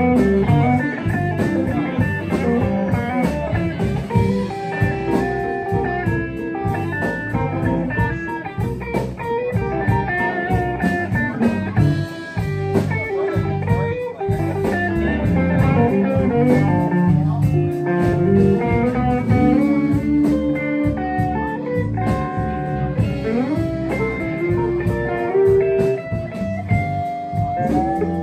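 Blues band playing an instrumental break, with a guitar taking the lead over a steady low accompaniment. Some of the guitar notes slide up or down in pitch.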